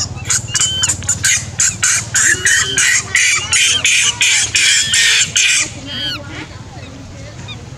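An animal giving a rapid run of harsh, noisy calls, about three a second, with higher chirps mixed in; the calls stop about five and a half seconds in.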